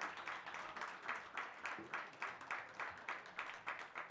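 Audience applauding, clapping together in a steady rhythm of about three to four claps a second.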